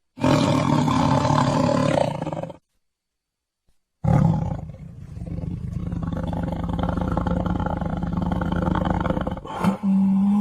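Tiger roaring: a loud roar of about two and a half seconds that cuts off suddenly, then after a second of silence a longer, rougher roar lasting about five seconds. Near the end a click is followed by a different sound with a steady pitch.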